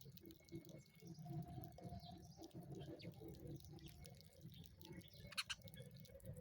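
Faint, soft chirps of a sparrow over a low background hum, with one sharper, louder chirp about five seconds in.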